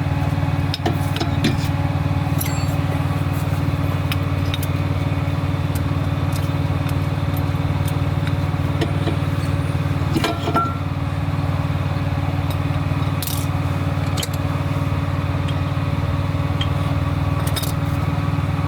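A steady low engine hum runs throughout, with scattered light metallic clicks and knocks as rear brake pads and their hardware are handled and fitted into the caliper bracket. The louder knocks come about ten and thirteen seconds in.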